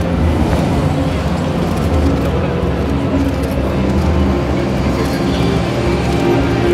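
Steady din of a crowded exhibition hall: a deep rumble and crowd chatter, with background music from the hall's sound system.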